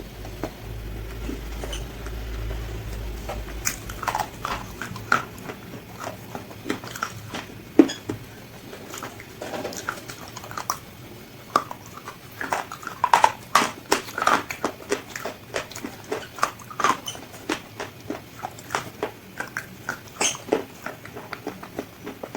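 Crispy fried chicken being bitten and chewed: irregular crunches and smacks, busiest a little past the middle, with a low hum under the first few seconds.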